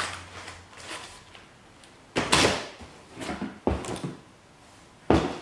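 Stiff clear plastic egg cartons clattering and knocking as they are handled and set into a plastic basket, with the loudest clatter about two seconds in, smaller knocks a second later and another just before the end.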